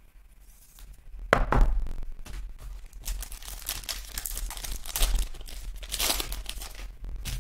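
The plastic cellophane wrapper of a retail trading-card cello pack is torn open by hand and crinkles. A sharp crackle about a second in is the loudest moment, and crackling and tearing of the plastic carry on after it.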